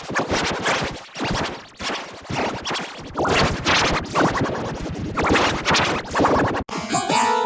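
Heavily effects-processed, distorted audio chopped into rapid scratchy stutters, like turntable scratching. Near the end it cuts suddenly to a different, pitched sound.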